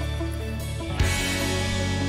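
Background music with sustained chords over a low bass; a sharp hit about a second in marks a change of chord.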